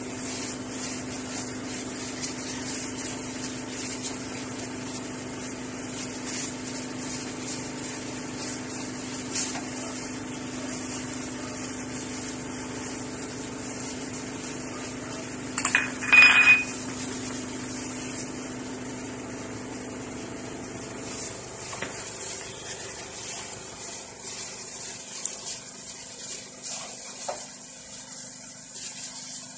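Split round scad being laid into vinegar marinade in a disposable aluminium foil tray: faint wet splashing and foil crinkling, with one brief loud crackle about 16 seconds in. A steady low hum runs underneath and stops about 21 seconds in.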